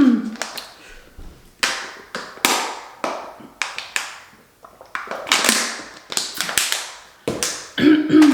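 Objects being handled at a table: an irregular run of sharp crackles and taps, some trailing off briefly, with a short hum of voice near the end.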